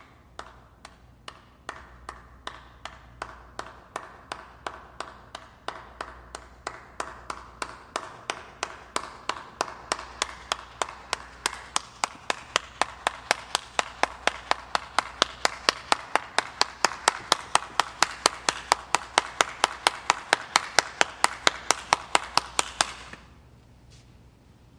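Single sharp claps in a steady beat, speeding up and growing louder throughout, then stopping suddenly near the end.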